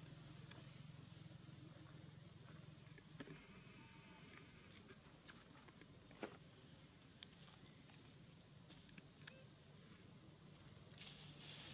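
A chorus of insects droning steadily at a high pitch without a break, with a few faint ticks and rustles here and there.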